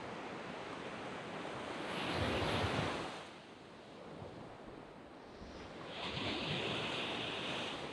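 Sea waves breaking and washing up a sand beach. One surge swells about two seconds in, then a lull, then a second wash builds from about six seconds in.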